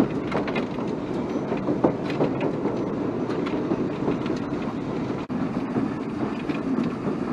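Footplate of a BR Standard Class 9F steam locomotive running at speed: a steady, dense rattle and clatter of the cab and the wheels on the track, with many sharp clicks and knocks.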